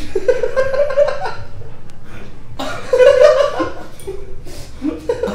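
Young men laughing, in two bursts, the second about three seconds in.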